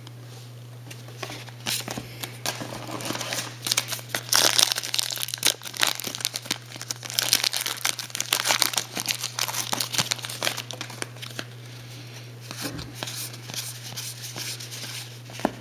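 Trading-card pack wrapper crinkling and tearing as the pack is ripped open, a dense crackle that is loudest in the middle and gives way to quieter handling of the cards near the end.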